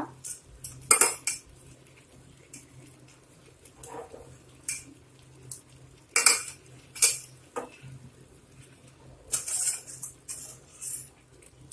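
Metal utensils and cookware clinking and knocking against each other at irregular intervals while pieces of cooked beef are laid onto rice in a large aluminium pot. A faint low hum runs underneath.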